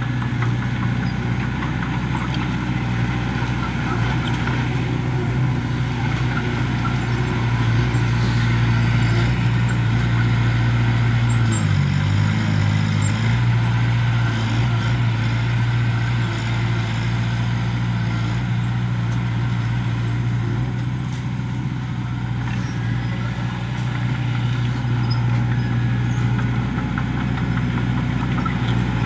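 Komatsu crawler bulldozer's diesel engine running steadily under load as it pushes soil. The engine note dips and recovers briefly about twelve seconds in.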